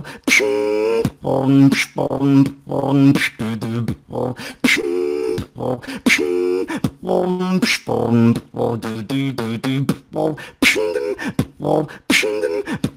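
Beatboxing: sharp mouth-made snare and hat clicks in a steady beat, woven between held, wavering hummed notes and deep bass tones.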